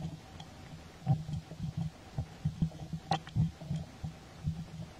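A run of irregular soft low thumps with one sharper click about three seconds in.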